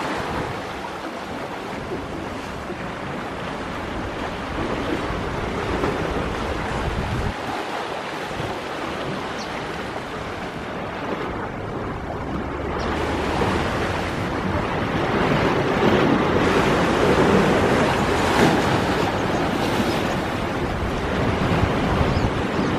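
Rough sea surf breaking and washing up a sandy shore in a steady rush that swells louder through the second half.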